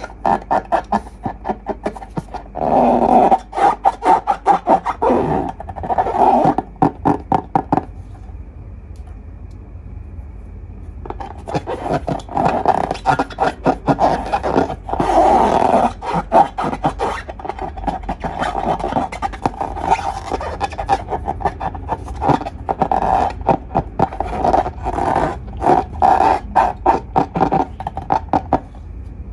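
Slime being squeezed and worked by hand, with rapid wet clicking and popping that pauses for a few seconds partway through.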